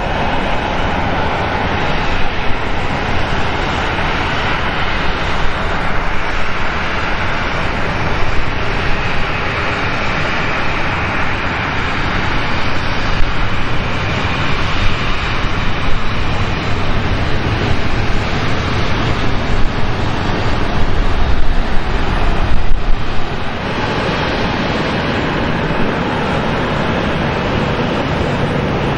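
Boeing 737's jet engines idling, a steady rushing noise over an uneven low rumble, dropping slightly in level about two-thirds of the way through.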